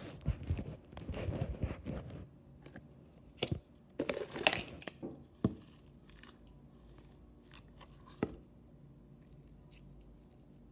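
Bubbly green slime squeezed and poked in a plastic jar, giving crackly, crunchy clicks and squishes in bursts through the first half, loudest about four seconds in, with a few single clicks later.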